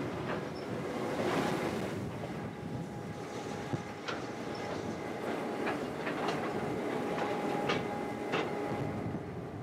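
T class diesel locomotive T404 running slowly under power while shunting, its engine giving a steady hum. From a few seconds in come about six sharp clicks as its wheels cross rail joints.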